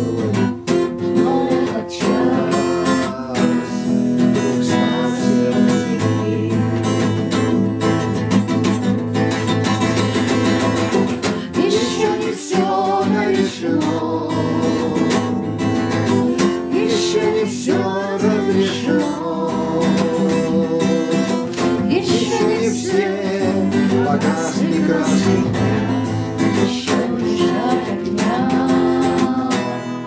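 A man singing to a strummed acoustic guitar.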